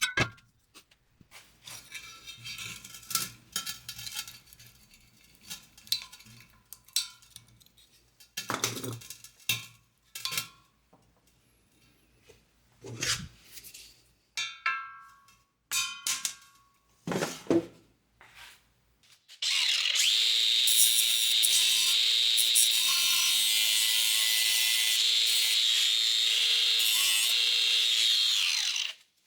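Scattered metal taps and clinks on a steel wheel rim, some ringing briefly. After that, an electric drill runs steadily for about ten seconds and then cuts off, as the hubcap clips are removed from the rim.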